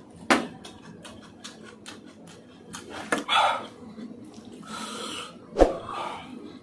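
Close-miked eating sounds: mouth-smacking and chewing on spicy masala Maggi noodles, with a couple of sharp loud smacks and short throaty mouth sounds in between.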